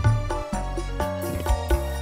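Live band music through a PA sound system: an electronic keyboard playing the melody over regular hand-drum strikes and heavy bass.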